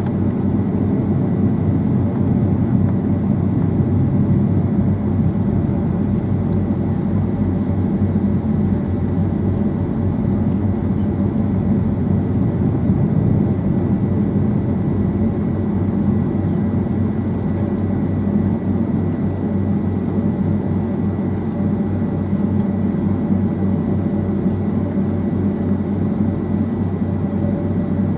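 Steady jet engine and airflow noise of a Boeing 757-200 heard inside the passenger cabin, heaviest in the low end, with a faint steady high whine running through it.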